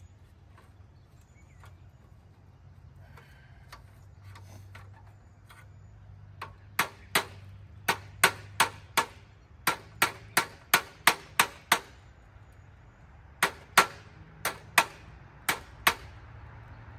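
A hammer striking in quick sharp taps, about twenty blows in two runs, the first starting about six seconds in and the second after a short pause, each with a brief ring; light clicks and handling noise before them.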